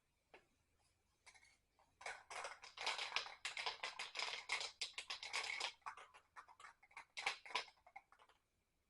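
Rapid run of small clicks and scratchy taps, a few at first, dense for several seconds, then thinning out with a last flurry near the end.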